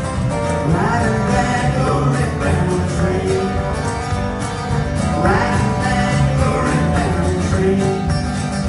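Live country-gospel music: a male singer with a strummed acoustic guitar and accompaniment, the voice coming in phrases over a steady instrumental bed.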